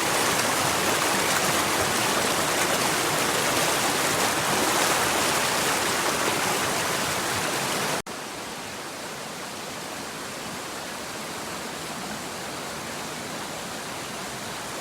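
Mountain stream water rushing over rocks, a steady noise. About halfway through it cuts suddenly to a quieter, more distant stretch of the same rushing water.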